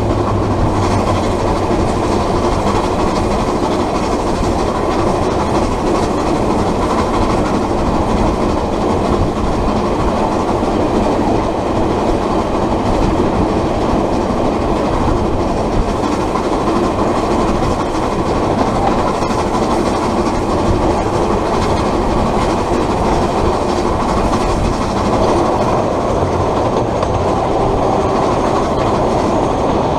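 Train running along the line behind NZR Ab-class steam locomotive 608, heard from the front of a locomotive coupled close behind its tender: a loud, steady rumble of wheels on the rails with some clatter.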